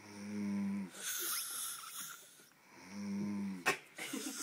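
Snoring: two low, pitched snores about a second long, one at the start and one about three seconds in, each followed by a hissing breath. A short sharp click comes near the end.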